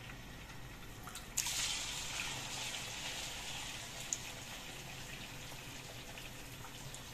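Battered chicken feet deep-frying in hot oil in a wok: a steady sizzle that jumps suddenly louder about a second and a half in as more feet go into the oil, with a light clink of the metal skimmer about four seconds in.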